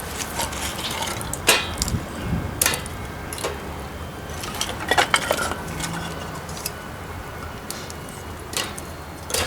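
Metal camp gear being handled: a handful of separate clinks and knocks, a few seconds apart.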